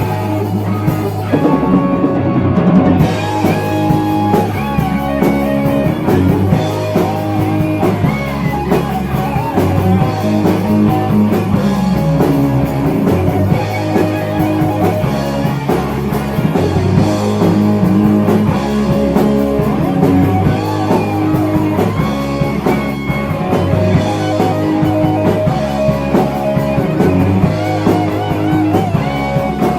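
Heavy metal band playing an instrumental passage: distorted electric guitar lead with bent, wavering notes over bass guitar and a steady rock drum beat.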